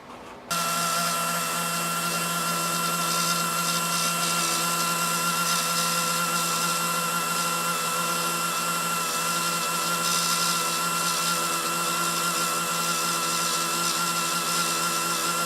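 A small electric power tool's motor starts about half a second in and runs steadily at one even pitch.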